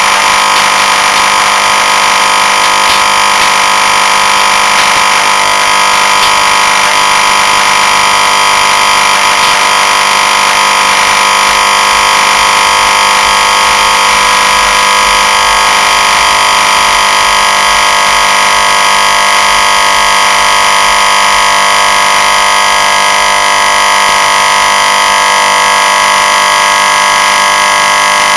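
Refrigerant compressor's single-phase electric motor buzzing loudly and steadily under power. Its thermal overload switch is bypassed, and its stator windings are overheating toward burnout.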